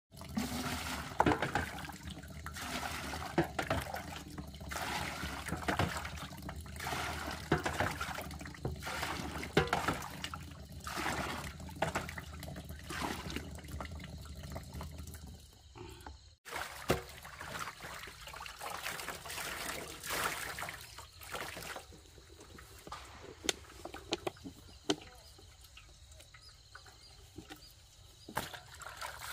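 Water running from a hose into a plastic barrel, with repeated splashing and pouring as it is scooped out with a plastic dipper. Quieter after a sudden break at about the middle, with occasional clicks.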